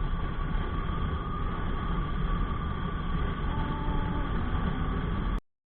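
Steady rumble of a motorcycle on the move, engine and wind noise heard through the rider's vlogging microphone. It cuts off abruptly near the end.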